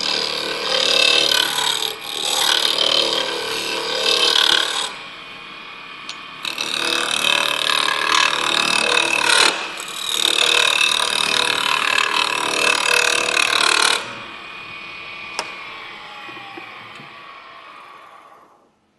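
Turning gouge cutting a spinning wooden sphere on a wood lathe, light back cuts around the edges of the out-of-round piece, in three long passes. After that the lathe's hum falls in pitch and dies away as it winds down to a stop near the end.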